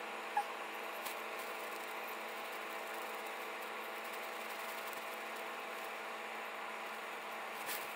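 Steady mechanical hum and whir with several fixed tones, with one short sharp blip about half a second in.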